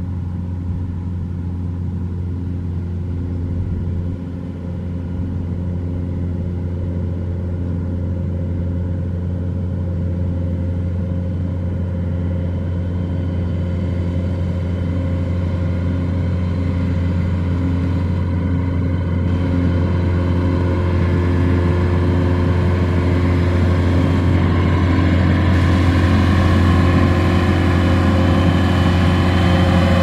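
Tracked rice combine harvester running steadily while cutting and threshing rice: a constant engine hum with machinery clatter over it, growing louder as the machine comes closer.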